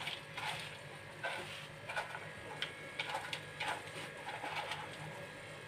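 Spiced onion and yoghurt masala cooking in an aluminium pressure-cooker pot, giving faint, irregular pops and sputters, about a dozen over a few seconds, over a low steady hum.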